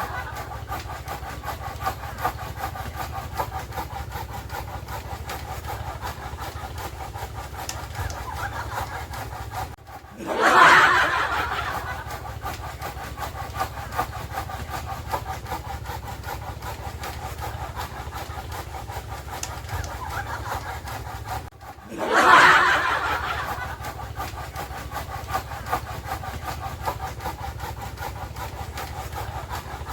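Chainsaw running while cutting wood, with a steady engine drone. The sound cuts out briefly twice, and each time it comes back with a louder surge that fades over a second or two, about ten and twenty-two seconds in.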